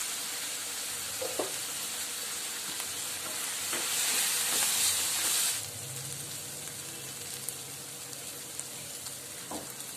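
Fenugreek leaves frying in oil in a stainless steel pan: a steady sizzle that swells for a couple of seconds around the middle as a spatula stirs them, then settles lower. The leaves are being sautéed until their raw smell goes.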